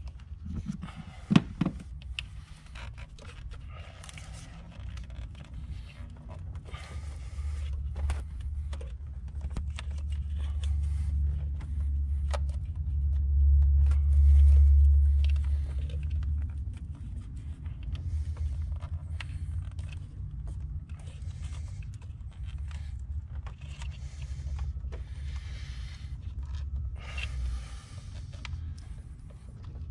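Hands working a foam-sleeved rubber hose loose from among engine-bay lines and spring clamps: scraping, rustling and small clicks of rubber and foam against metal lines, with a sharp knock about a second in. A low rumble runs underneath, swelling around the middle.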